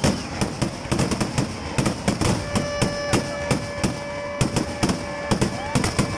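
Kerala temple vedikettu fireworks: a rapid, continuous run of firecracker bangs, several a second.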